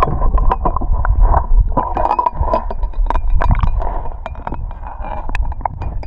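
Water moving around a microphone held underwater in a river: a muffled low rumble and gurgle with many small sharp clicks and taps, around a trout in a landing net.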